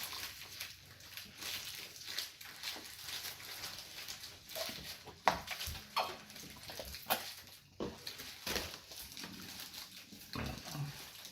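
Close-miked chewing and lip smacking of a person eating a fast-food sandwich, with irregular wet clicks.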